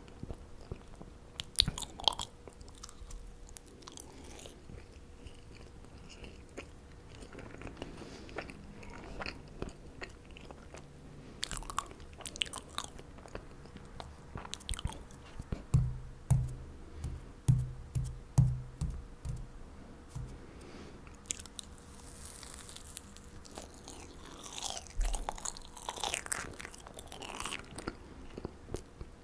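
Close-miked chewing of marshmallows: soft, sticky mouth sounds with scattered sharp clicks, a quick run of low thuds around the middle, and a busier stretch of chewing near the end.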